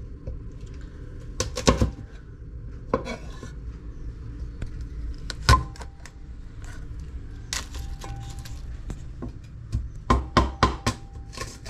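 Kitchen knife cutting through lemongrass stalks onto a wooden cutting board: sharp single knocks spaced a second or two apart, then a quick run of several knocks near the end. A steady low hum runs underneath.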